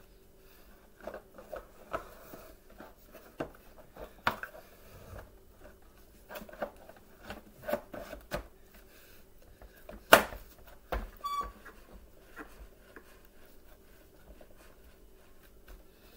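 Scattered plastic clicks and knocks as a brush roll is seated into the base of a Bissell Powerforce Bagless upright vacuum, with one sharp snap about ten seconds in.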